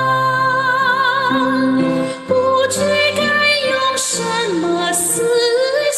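A woman singing a Chinese ballad in a high register over instrumental accompaniment, holding long notes with vibrato, with a brief breath between phrases about two seconds in. Her high notes have power and carry, but the throat is not squeezed and the tone does not turn harsh or blaring.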